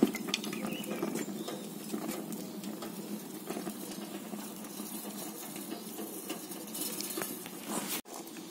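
Wood fire burning in a biochar cook stove made from 20-litre oil drums: a steady rushing 'rocket kind of sound' of the draught through the burn chamber, with frequent crackles.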